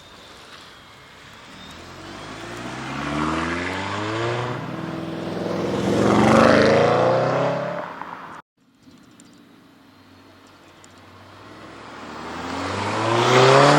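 Mercedes-AMG A45's turbocharged four-cylinder accelerating hard, its pitch rising through the revs, with an upshift about a third of the way in, getting louder as it approaches. The sound cuts off abruptly just past halfway, then another hard acceleration builds, getting louder towards the end.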